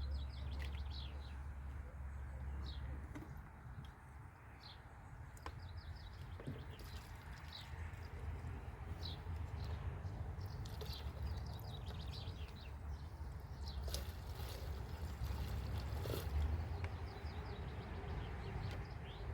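Small birds chirping in short repeated calls, over a low steady hum.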